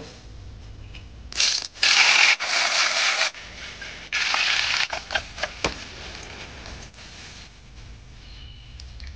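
Cooking sounds from an enamelled cast-iron pot over a charcoal fire. A loud, harsh hiss or scrape starts about a second and a half in and lasts two seconds, and a shorter one comes about four seconds in. Scattered light clicks and taps follow.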